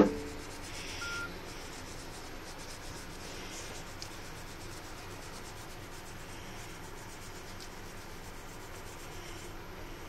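Toothbrush bristles scrubbing a fingertip: a steady soft rubbing, after a brief click at the very start.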